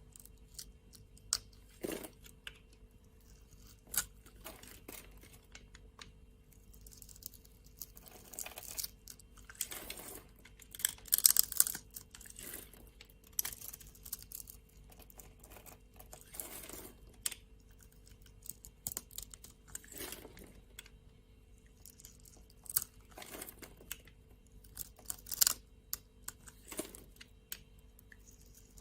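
A knife cutting through dry soap: irregular crisp cracks and crunches, with a louder run of crunching about eleven seconds in.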